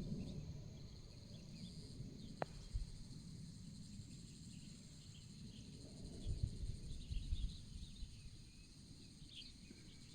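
Insects trilling steadily and high-pitched, with low rumbling wind gusts on the microphone at the start and again about six seconds in, and a single sharp click about two and a half seconds in.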